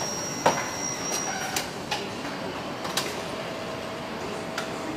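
Car-plant assembly-line machinery running: a steady hiss with a high whine that stops about a second in, and a lower steady hum from about halfway. Over it come sharp metallic clanks and clicks, five in all, the loudest about half a second in.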